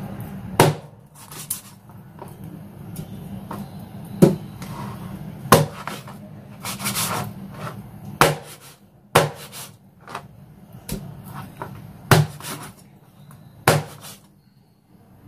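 Cleaver chopping through raw chicken on a cutting board: about ten sharp, separate chops at uneven intervals, with quieter slicing and scraping of the blade between them.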